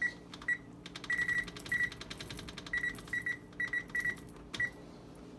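Electric range's touch keypad beeping once for each button press, a string of about a dozen short, same-pitched beeps, some in quick runs, as the timer is keyed up towards 20 minutes.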